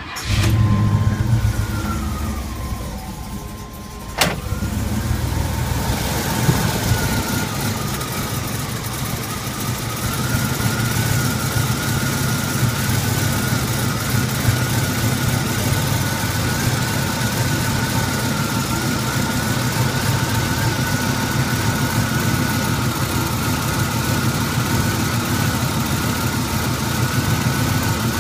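1981 Pontiac Turbo Trans Am's turbocharged 301 V8 starting from cold and running at a rough, uneven idle. It sags and then picks up again with a sharp click about four seconds in, and a steady thin whine sits over the engine.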